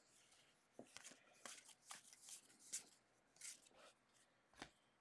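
Faint, irregular flicks and rustles of a stack of football trading cards being thumbed through by hand, one card after another.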